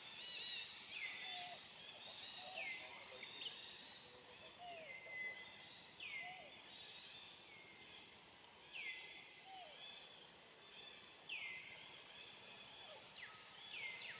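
Faint outdoor ambience. A high call sweeps downward in pitch and repeats about every one and a half seconds, with softer, lower calls between.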